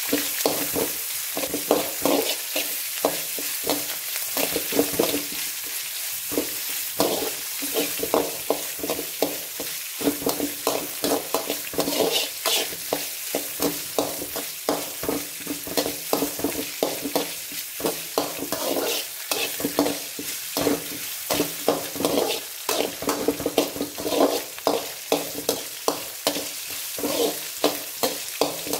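Green chillies, curry leaves and ginger-garlic paste sizzling in hot oil in a metal kadai, stirred with a metal spatula that scrapes and taps against the pan about once or twice a second.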